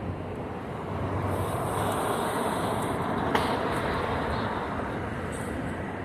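City street traffic noise that swells over a few seconds as a vehicle passes, then eases off, with one sharp click about three seconds in.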